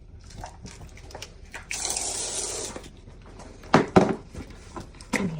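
Water running from a tap into a sink for about a second, followed by two sharp knocks.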